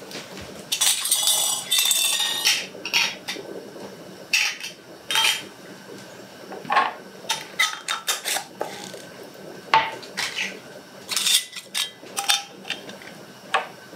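Metal canning lids and screw bands clinking and scraping against small glass mason jars as they are put on the filled jars. A longer rattling stretch comes near the start, then scattered sharp clinks.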